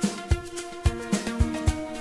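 Background music with a steady drum beat of about two strokes a second under a melody of held notes.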